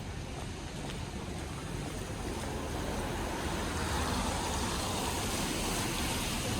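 Outdoor traffic noise: a steady rushing with a low rumble that grows gradually louder, as of a vehicle drawing near.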